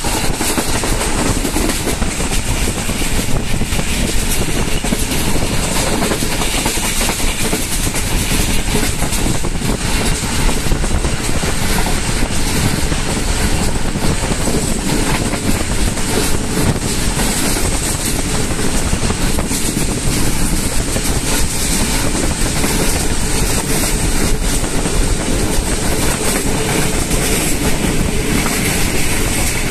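Passenger train running at speed, heard from inside a carriage: steady, loud running noise of the wheels on the rails.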